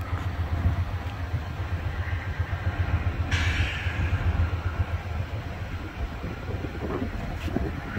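Amtrak passenger cars rolling past on the rails, a steady low rumble of wheels on track. About three seconds in, a hiss starts suddenly and slowly fades.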